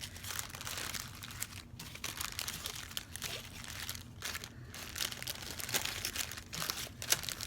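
Small plastic bags of diamond-painting drills crinkling and crackling irregularly as they are handled and packed back together.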